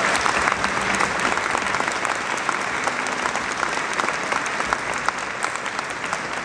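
Audience applauding: many hands clapping in a dense, steady stream, easing slightly near the end.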